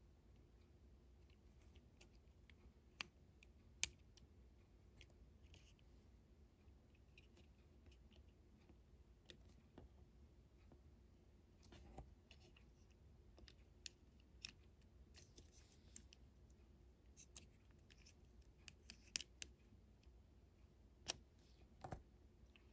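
Faint scattered clicks and light scratching of a small plastic model and its packaging being handled by hand, over near-silent room tone. The sharpest click comes about four seconds in, and a few more follow later.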